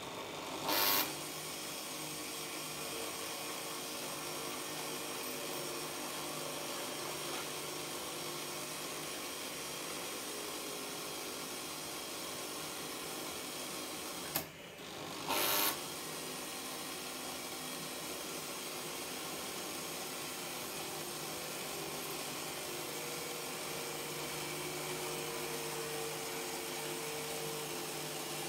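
Analog Märklin H0 model locomotive running slowly on metal track, a steady mechanical hum and rumble from its motor and wheels. Two short loud clacks, one about a second in and one about fifteen seconds in; the second comes just after the running sound briefly drops away.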